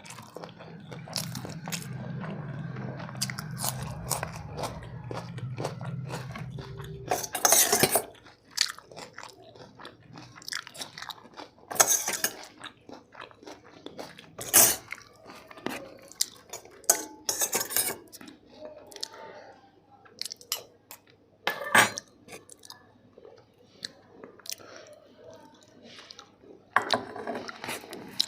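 Close-miked chewing and crunching of biryani, with several sharper, louder clatters scattered through, as of a dish or cutlery.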